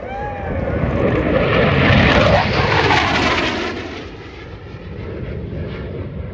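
An airplane flying past: its engine noise swells to a loud peak about two to three seconds in, then fades away.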